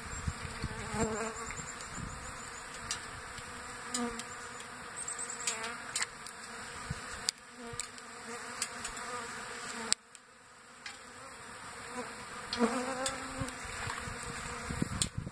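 A swarm of bees buzzing steadily around birdseed feeders, with single bees droning close past now and then. Scattered sharp pings of birdseed being flicked out of the feeders by the bees.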